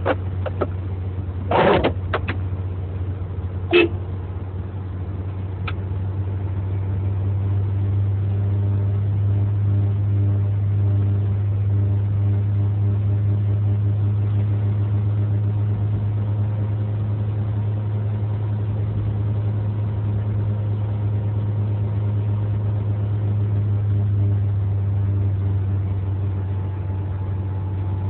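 Car driving at a steady speed, heard from inside the cabin: a steady low drone of engine and road noise. A few short knocks in the first few seconds.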